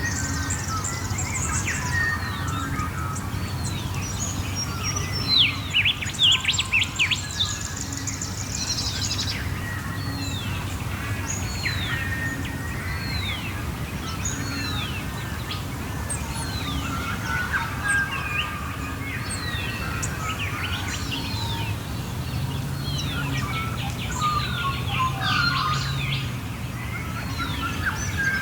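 Dawn chorus of Australian bush birds. One bird repeats a falling whistled note about every second and a half over a mix of other chirps and calls, with a louder burst of dense, harsh calling about five to seven seconds in. A low steady rumble runs underneath.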